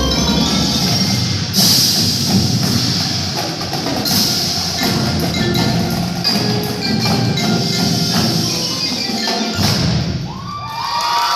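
Live percussion ensemble playing, with mallet keyboards, wood block and chimes. Crowd cheering and shouting breaks out near the end.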